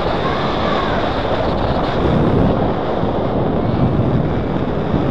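Steady, loud rush of airflow buffeting the camera microphone on a paraglider in flight.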